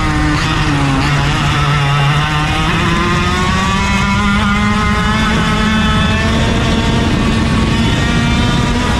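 Racing kart engine running hard: its pitch falls over the first couple of seconds as the kart slows, then climbs steadily through the rest as it accelerates.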